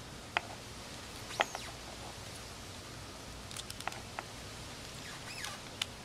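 Scattered small clicks and wet snaps of a blue crab's shell and body being pulled apart by hand, the sharpest about a second and a half in.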